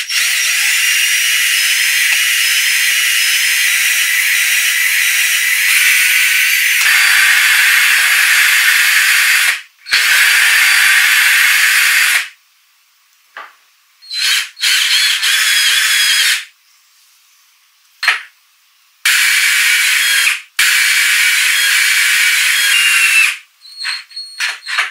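Cordless drill running in several runs of a few seconds each, boring holes through a metal drilling jig into a teak block and cutting countersinks for screw heads. The first run is long, and its pitch rises slightly. A few short trigger bursts come near the end.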